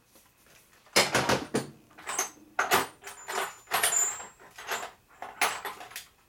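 Metal hand tools and sockets clattering and clinking as someone rummages for a socket: a quick run of knocks and rattles with a brief metallic ring in the middle.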